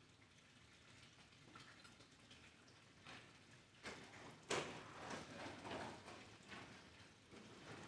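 Near-quiet church with scattered faint knocks and clicks from people moving about. The sharpest knock comes about four and a half seconds in, followed by a run of smaller ones.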